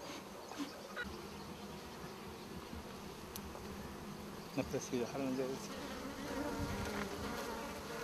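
Honeybees buzzing around their hives: a steady hum that grows louder in the second half, its pitch sliding as bees fly close by.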